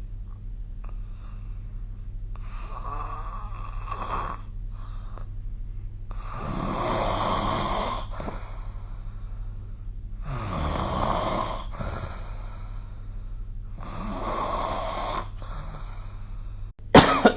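A person snoring: four long snores, about four seconds apart, over a steady low hum. A sudden loud burst breaks in at the very end.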